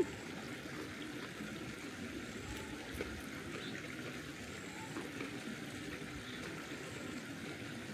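Steady sound of running water, like a stream trickling, with a faint tick about three seconds in.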